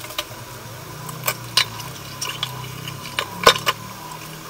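A pot of soup at a rolling boil: irregular pops and ticks of bursting bubbles over a low steady hum.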